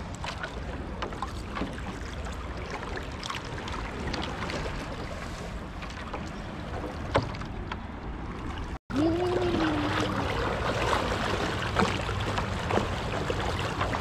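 Shallow seawater sloshing and splashing around someone wading, with wind rumbling on the microphone. The sound cuts out for an instant a little before halfway, then comes back louder with a short rising-and-falling tone.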